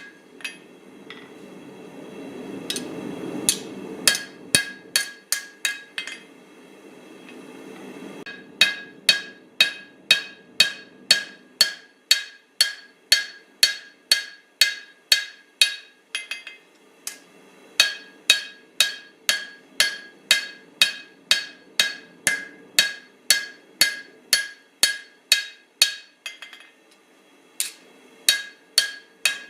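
Blacksmith's hammer striking steel on an anvil while forging a small cleaver, each blow with a high anvil ring. For the first several seconds there are only a few blows over a low rushing noise; then come steady blows, about two a second, with a short pause near the end.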